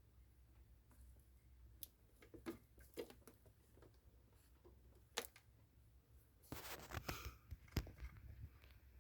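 Quiet room with scattered faint clicks and taps, and a brief rustle about six and a half seconds in.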